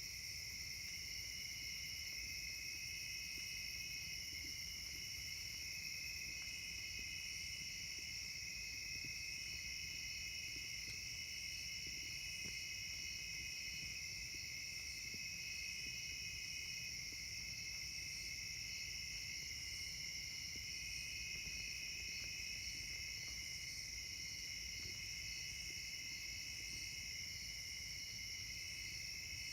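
Chorus of summer insects trilling steadily: one high, continuous trill, with lower-pitched trills that start and stop every second or two.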